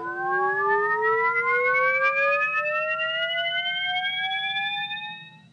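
Sci-fi transporter beaming sound effect: a single electronic tone rising steadily in pitch like a slow siren sweep, fading out near the end.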